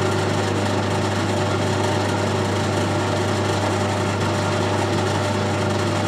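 Colchester Student lathe running under power with the leadscrew and gear train engaged for 12 threads per inch, the carriage feeding along without cutting. It is a steady mechanical running sound with a strong low hum.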